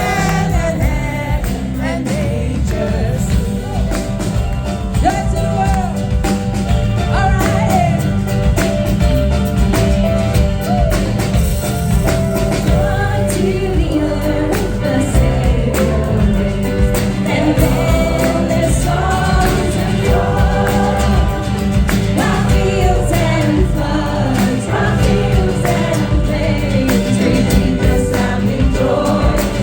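Music with singing voices over a steady, dense beat.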